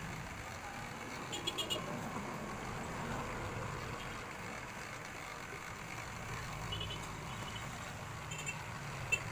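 Steady low background rumble with a few short, light clicks as small parts are handled while the player module is fitted into the speaker panel: a small cluster about a second and a half in, and more near the end.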